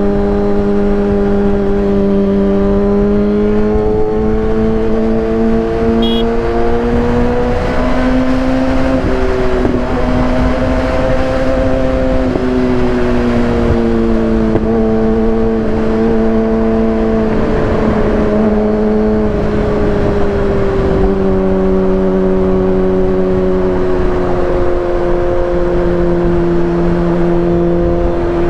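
2015 Kawasaki ZX-6R 636 inline-four with a Racefit aftermarket exhaust, running steadily on the move. Its pitch rises a little about eight seconds in and eases back down later, over a steady rush of noise.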